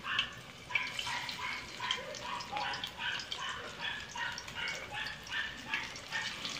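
Oil sizzling faintly as battered fish fillets deep-fry in a wok, under a steady run of short, high-pitched animal yelps, about two or three a second.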